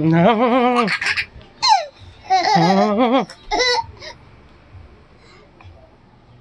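A toddler laughing in several loud, wavering bursts with a short falling squeal among them, the laughter dying away about four seconds in.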